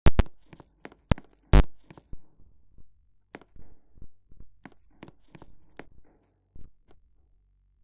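Irregular handling clicks, knocks and scratches, three sharp loud clicks in the first two seconds and fainter ones after; no siren is sounding.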